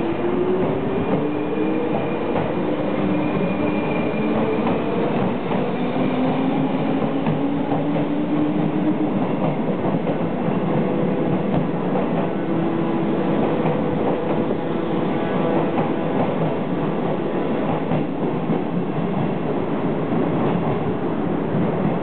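JR 201 series electric train pulling away from a standstill. Its chopper-controlled traction motors whine in several rising tones as it accelerates over the first nine seconds or so. After that the wheels run steadily on the rails, clicking over rail joints as the train draws away.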